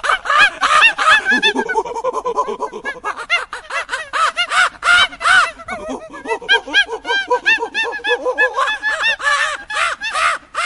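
A flock of birds calling: many short, rapid calls overlapping one another, cutting off abruptly at the end.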